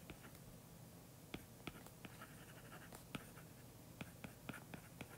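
Stylus writing on a tablet's glass screen: faint, irregular light taps and short scratches as the strokes of handwritten symbols are drawn.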